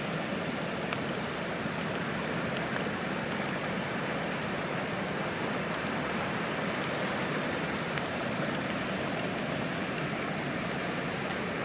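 Rain-swollen creek running high and fast in flood: a steady, even rush of water.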